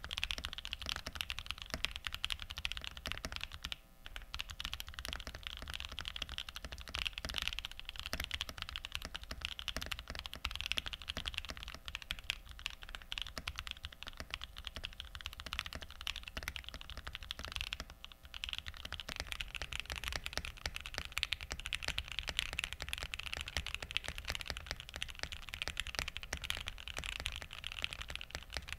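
Continuous typing on a mechanical keyboard in a Mode board, first with Darling Frankenswitches (Gazzew Bobagum silent-linear housings with Kailh Pro Burgundy stems), linear switches with a deep bottom-out from their very long stem hole. After a short break about 18 seconds in, the typing continues on Gateron Ink linear switches for comparison.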